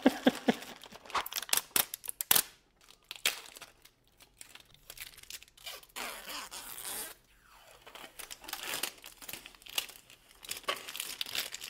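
Clear protective plastic film being peeled off a new graphics card's backplate: a series of short crackling tears and crinkles, with clicks of the card being handled.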